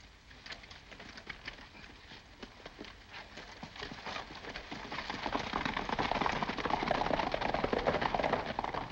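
Hoofbeats of several ridden horses, a dense, rapid clatter of hooves that grows louder about halfway through.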